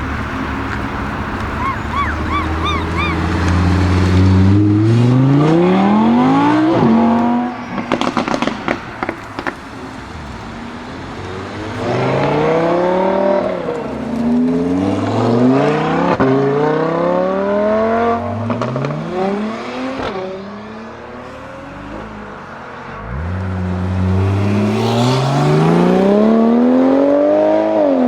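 Porsche 997 Turbo's twin-turbo flat-six through a SOUL Competition exhaust, accelerating hard in several pulls, the revs climbing and dropping back at each gear change. About eight seconds in comes a burst of crackles and pops as the throttle is lifted.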